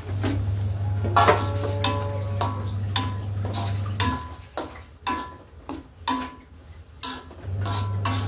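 Metal spatula clinking and scraping against a steel wok while stirring a thick mixture: sharp metallic clinks with a brief ring, roughly one or two a second. A steady low hum underneath stops about four seconds in and comes back near the end.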